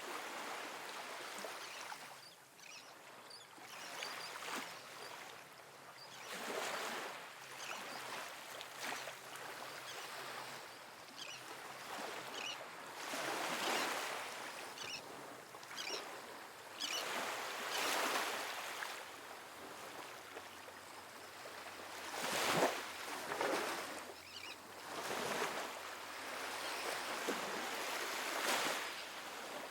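Small ocean waves washing up on a sandy beach: a steady hiss of surf that swells and fades every few seconds as each wave breaks and runs up, the biggest about three-quarters of the way through.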